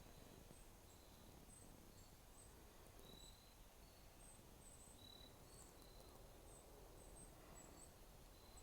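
Near silence, with a faint insect chirping: short, high chirps repeating at irregular intervals.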